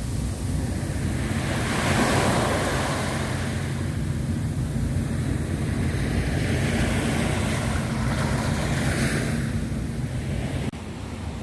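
Sea waves washing onto the shore, swelling about two seconds in and again near the end, over a steady low rumble of wind on the microphone. The sound drops suddenly in level just before the end.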